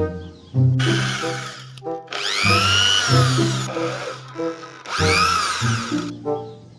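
Power drill whirring in three bursts, each speeding up and then winding down, over background music.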